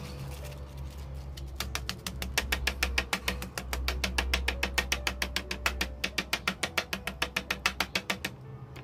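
Background music with a fast, even ticking beat, about six ticks a second, over a low hum.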